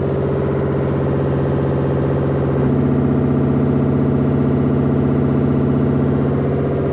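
Samsung WF106 Eco Bubble front-loading washing machine making an abnormal noise in its spin cycle: a fast, even pulsing over a steady hum, whose pitch shifts about two and a half seconds in. The noise is the sign of a fault in the machine.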